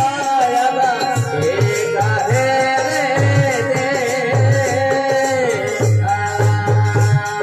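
Marwari folk bhajan music: a harmonium holds and moves between sustained melody notes over a steady dholak beat, with light rattling percussion.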